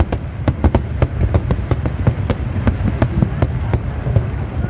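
Aerial fireworks going off in rapid succession: many sharp bangs, several a second, over a continuous low rumble of further bursts.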